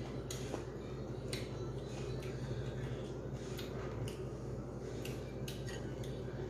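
Eating sounds from a meal eaten by hand: scattered light clicks and soft squishes of fingers working rice on a ceramic plate, with the odd tap of a spoon, over a steady low hum.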